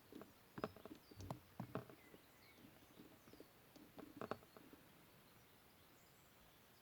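Faint, scattered clicks and taps of small metal carburettor parts and hand tools being handled while the valve is fitted, stopping after about four seconds, with faint bird chirps in the background.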